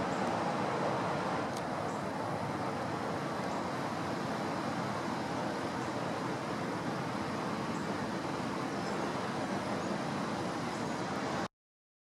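Strong wind blowing through the trees, a steady rushing noise that cuts off suddenly near the end.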